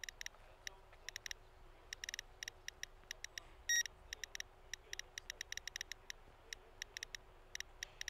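A Geiger counter clicking irregularly, with single clicks and quick clusters at uneven intervals over a faint steady tone.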